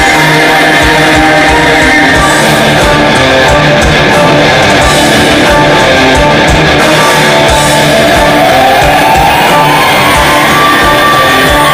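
Loud live rock music from a stage band, with a male lead singer belting into a handheld microphone over a steady beat. A long note rises and is held in the last few seconds.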